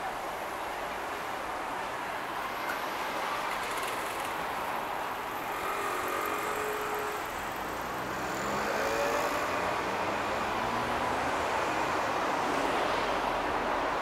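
City street traffic: cars driving past close by, getting louder from about eight seconds in.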